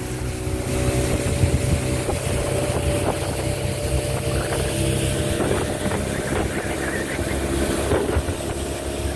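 Motorboat engine running steadily while the boat travels at speed, with water rushing past and splashing against the hull, the splashes thickening from about five seconds in.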